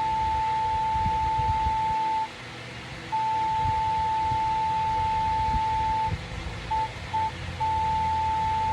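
Morse code sent as a single steady beep tone switched on and off: long held tones of two to three seconds separated by short gaps, with two brief pips about two-thirds of the way through. A low background rumble runs underneath.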